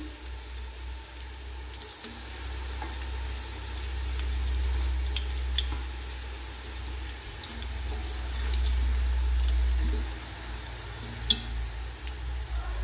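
Golden-fried sliced onions, garlic and whole spices sizzling in hot oil, a steady hiss with scattered small crackles over a low hum. One sharp click comes about eleven seconds in.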